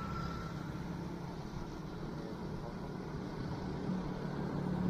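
Steady low hum of a motor vehicle's engine running, growing louder near the end.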